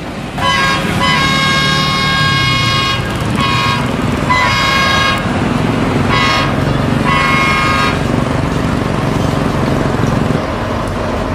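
BB303 diesel-hydraulic locomotive sounding its horn: one long blast of about two and a half seconds, then four shorter blasts. The engine runs with a low drone underneath.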